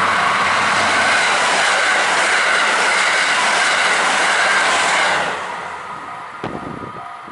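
A train passing close by: a loud, steady rush of wheels on rail that drops away suddenly about five seconds in as the last car clears, followed by a single sharp knock.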